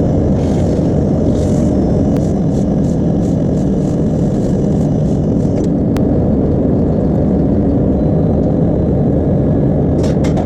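Mori Seiki CNC machining centre milling an aluminium bracket: a steady, dense running noise, with light ticks in the first few seconds and a single sharp click about six seconds in.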